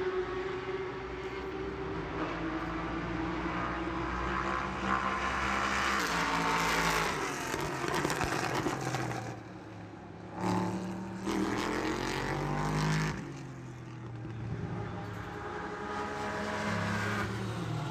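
Race car engines running at high revs, their pitch rising and falling as cars go by. A long rising sweep about two-thirds of the way through cuts off sharply.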